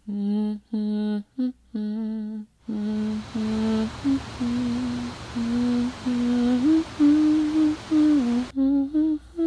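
A voice humming a slow melody without words, in short separate notes at first, then longer held and gliding notes. From about three seconds in until near the end, a steady rushing hiss of water runs under the humming.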